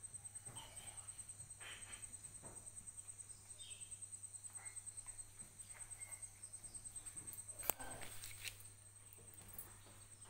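An insect chirping in a steady, fast, high-pitched pulse, about six pulses a second, with one sharp click about three-quarters of the way through.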